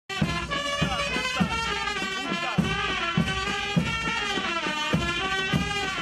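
Music: a sustained, richly pitched melody over a steady drum beat of about one beat every 0.6 seconds.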